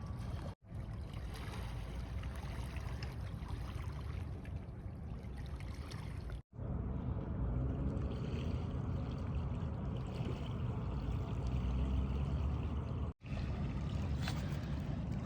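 Lake Michigan waves lapping on a pebble beach: a steady wash with a strong low rumble. It drops out abruptly three times, at about half a second, six and a half seconds and thirteen seconds in.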